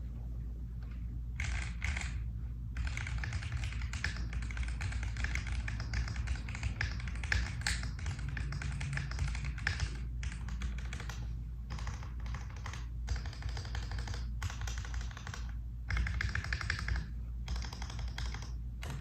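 Typing on a QK60 60% custom mechanical keyboard with Gateron Oil King linear switches on a POM plate: a fast, continuous run of keystrokes broken by several brief pauses, over a low steady hum.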